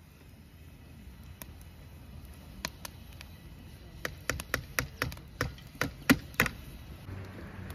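A run of sharp knocks on a hard surface, like chopping: a few scattered ones at first, then about a dozen coming quickly from about four seconds in, with the loudest near the end of the run.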